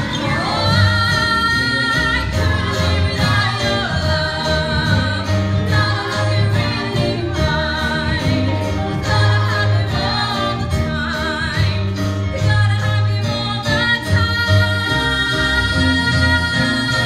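A woman singing a solo show tune with vibrato over live keyboard and bass accompaniment, ending on a long held note.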